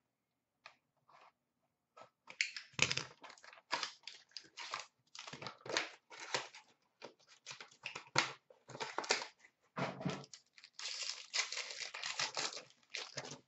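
Upper Deck SP Game Used hockey card box and foil pack being handled and torn open: irregular crinkling and ripping of the foil wrapper and cardboard. The sounds come in short sharp crackles, thickening into a denser crinkling run about two-thirds of the way through.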